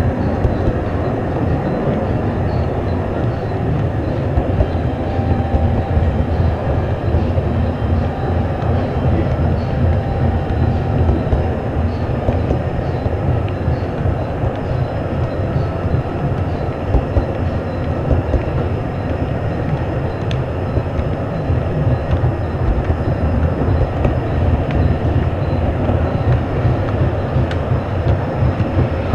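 Gauge 0 model freight wagons rolling along the track, heard from on board: a steady rumble of metal wheels on rails, with a few light clicks.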